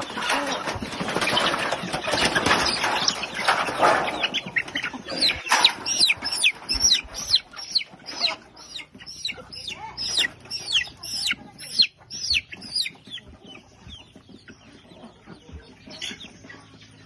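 Native chickens clucking, a dense mix of calls for the first few seconds, then a run of sharp, high, falling peeps about three a second that fades out after about thirteen seconds.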